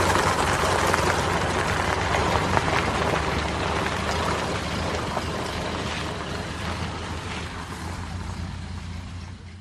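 Old car's engine running steadily, growing gradually fainter.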